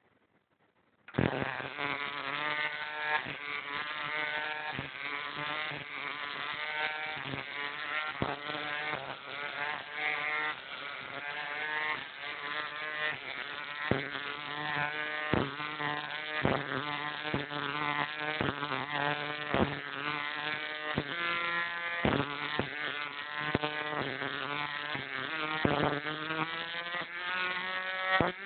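Jacob's ladder high-voltage arc buzzing, switched on about a second in. The buzz wavers in pitch and gives a sharp crack about once a second as the arc climbs the rods, breaks and strikes again at the bottom.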